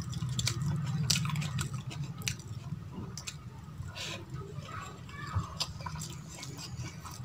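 Close-up eating sounds: a hand squishing and mixing rice on a steel plate, and wet chewing with many short lip and mouth clicks.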